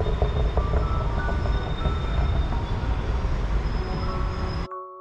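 Steady low rumble of city traffic with a few faint high whines. It cuts off suddenly near the end, where a ringing chime-like tone begins.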